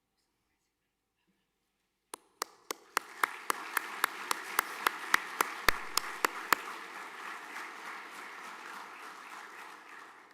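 Audience applause in a hall, starting suddenly about two seconds in. For the first few seconds a loud, steady beat of single claps, about four a second, stands out over the crowd's clapping, which then carries on and fades away near the end.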